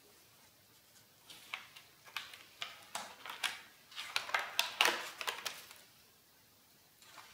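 Stiff, crinkled sketchbook paper, worked with ink, water and paint, crackling and rustling as pages of a spiral-bound sketchbook are turned by hand. A run of sharp paper crackles starts about a second in, is loudest past the middle, and dies away a second or so before the end.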